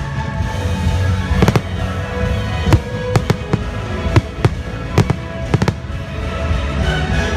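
Fireworks bursting over the show's music: about a dozen sharp bangs at irregular intervals, several in quick succession.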